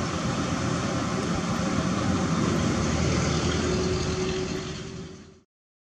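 Caterpillar 320D L long-reach excavator's diesel engine running steadily, with a brief higher steady tone about four seconds in. The sound fades out and stops just after five seconds.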